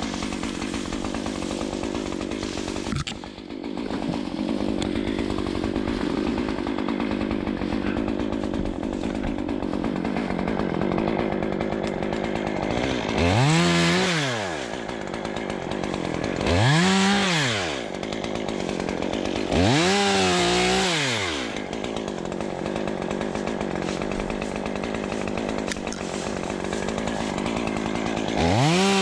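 Two-stroke chainsaw idling, then revved up four times for short cuts, the pitch rising and falling back each time. The last rev comes near the end.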